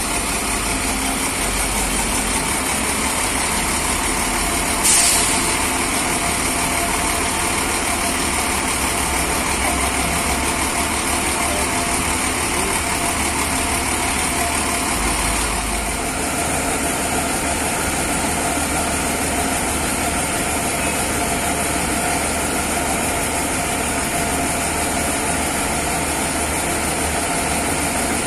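Rear-engined Hino diesel coach idling steadily, heard from behind the bus. There is a brief loud hiss about five seconds in, and the deep rumble lessens about sixteen seconds in.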